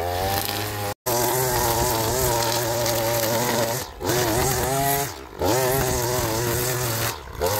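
Gas string trimmer's small engine running at high speed while cutting grass, its pitch wavering up and down, with a brief gap about a second in.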